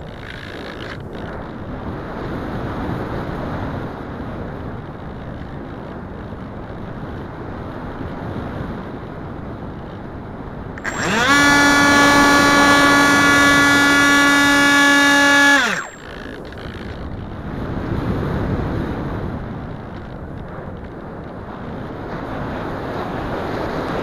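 Wind rushing over the onboard keychain camera's microphone as the Wing Wing Z-84 flying wing flies, with no motor tone for the first stretch. About eleven seconds in, the uprated FunFighter electric motor throttles up with a rising whine, holds a loud steady high-pitched whine for about four seconds, then winds down as the throttle is cut, leaving the wind rush again.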